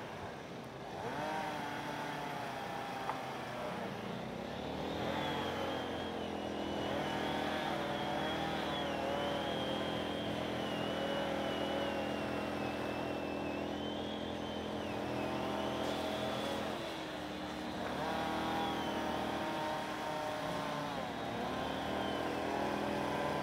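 Motors running steadily, several held tones with a higher whine that wavers slowly up and down in pitch.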